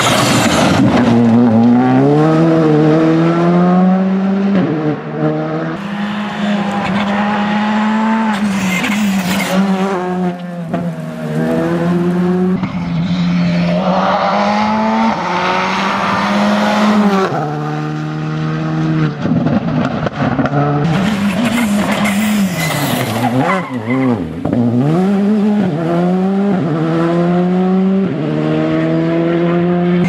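Škoda Fabia R5 evo rally car's turbocharged 1.6-litre four-cylinder engine at full attack, passing by several times: revs climb and drop back sharply with quick gear changes, between stretches of a steady held note.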